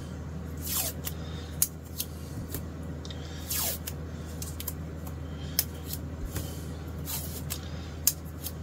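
Masking tape being pulled off the roll and torn into short pieces, two longer tearing sounds among small handling clicks, over a steady low hum.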